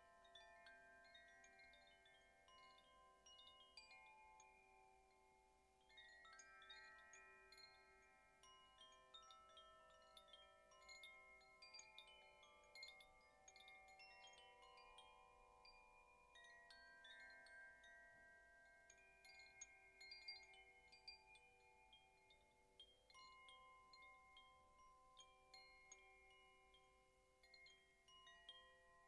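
Two handheld cylinder chimes swayed on their cords, their hanging clappers tapping the tubes lightly and often. The result is a soft wash of overlapping, sustained ringing tones.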